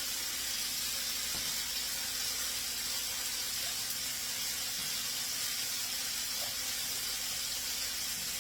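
Chicken pieces frying in hot oil in a frying pan: a steady sizzle.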